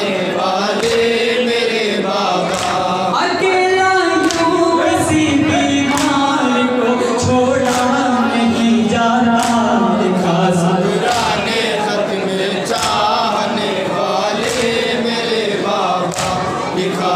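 A group of men chanting an Urdu noha (Shia mourning lament) in unison, in slow gliding phrases. Sharp slaps of matam, open hands striking chests, land about once a second.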